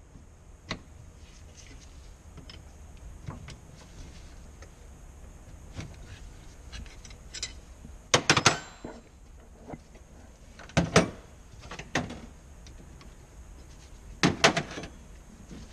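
Steel wrenches clinking and clanking against the fittings and metal housing of an Aqua-Hot diesel burner as the fittings are worked with them: quiet ticks and handling noise, with sharp metal clanks a little past a third of the way in, twice past halfway and again near the end.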